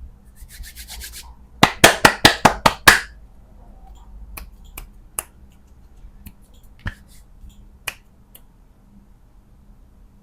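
Hands tapping and handling hard candy packaging: a faint crackle, then a quick run of about eight sharp clacks, then scattered single clicks.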